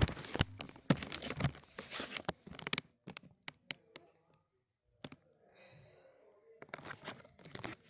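Rustling and crinkling with sharp clicks, in two spells: about three seconds at the start, then again near the end.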